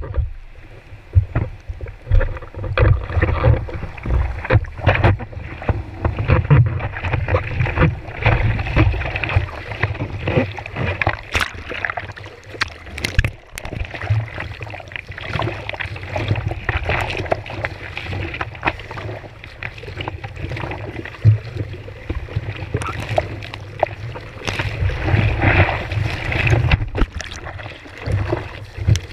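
Water splashing and slapping close to a surfboard as the surfer paddles out through whitewash, with irregular low buffeting of water and wind on the board-mounted camera's microphone.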